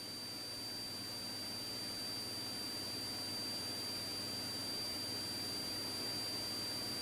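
A thin, steady high-pitched electronic tone held over faint hiss and low hum, growing very slightly louder.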